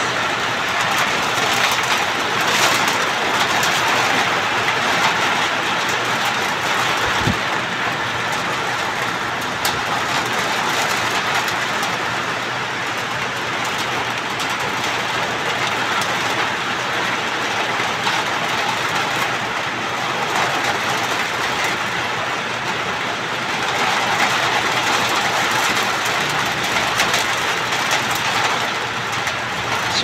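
Heavy rain falling on corrugated metal roofs, a steady, even hiss.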